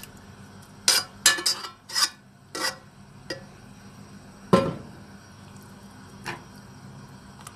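Metal spoon clinking and scraping against a frying pan and a cooking pot as a tomato mixture is scraped into a soup and stirred in. Several sharp clinks come in the first three seconds, the loudest knock about four and a half seconds in, and one lighter clink near the end.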